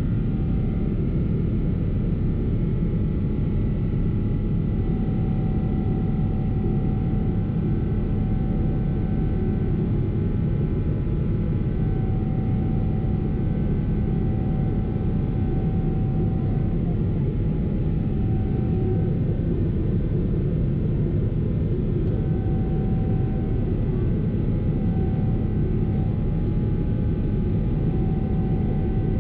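Steady cabin roar of a Boeing 777-300ER climbing out after takeoff, heard from a window seat: its GE90-115B engines at climb thrust and the rush of air over the fuselage, deep and even. A faint thin tone above it fades in and out.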